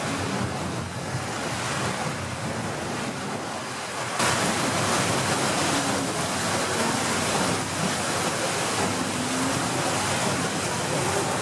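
Rushing, churning water of the paddle steamer Waverley's foaming wash alongside the hull, with wind buffeting the microphone. About four seconds in, it turns suddenly louder and hissier.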